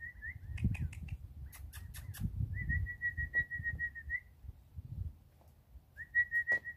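A person whistling long, steady, slightly wavering notes three times, each ending with a small upward flick. A run of sharp clicks sounds in the first half.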